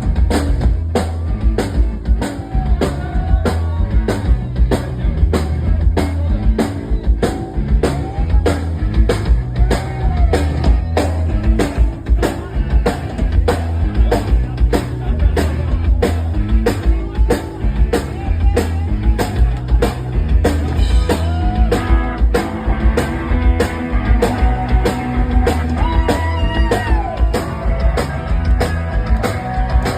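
Live rock band playing an instrumental stretch: a drum kit keeping a steady beat with a heavy kick, under electric guitar and bass.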